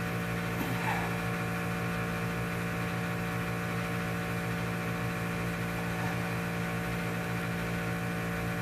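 Steady machine hum made of several steady tones, unchanging throughout, with a couple of faint short squeaks about a second in and again about six seconds in.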